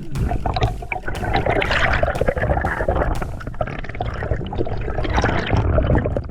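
Water gurgling and sloshing, with a dense stream of small clicks and crackles.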